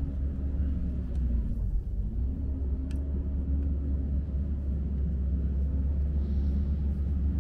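Steady low rumble with a faint droning tone that dips in pitch about a second and a half in and climbs back, and a light click about three seconds in.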